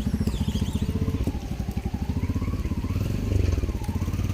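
A small engine running steadily close by, its firing pulses even throughout, with a few faint high chirps early on.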